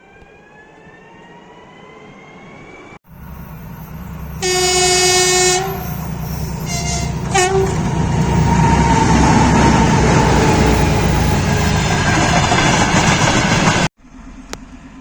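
A train sounding its horn: one long blast, then two short ones. The loud rumble and rattle of the train passing close by follows. Before the horn there is a whine rising in pitch, and the sound cuts off abruptly near the end.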